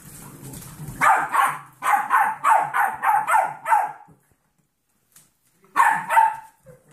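Golden retriever mix puppies, ten weeks old, yapping in play: a quick run of about ten barks, a pause, then two or three more barks near the end.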